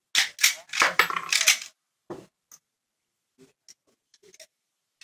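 A quick run of loud clattering knocks and clinks in the first two seconds, then a few faint scattered clicks.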